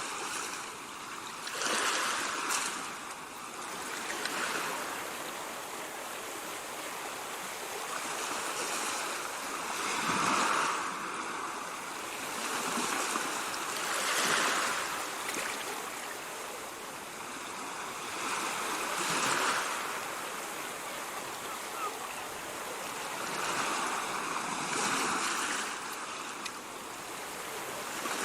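Ocean surf: a steady rush of waves that swells into louder washes every few seconds and fades back again.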